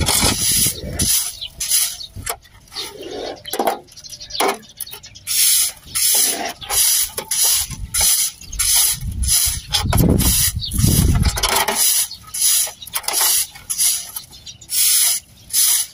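Broom sweeping over a concrete drying pad in quick repeated strokes, brushing scattered dried palay (unhusked rice grain) into a dustpan. Each stroke is a short scratchy swish, about one to two a second, with a low rumble about ten seconds in.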